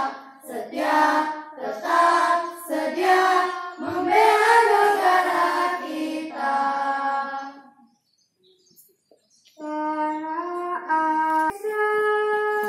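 A group of children singing a song together, which ends about eight seconds in. After a short silence, long held notes that step up and down in pitch begin near ten seconds in.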